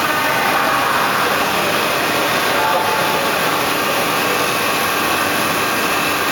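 CNC wood lathe turning a baluster blank, a steady machine noise of the spinning workpiece and cutter shaving wood.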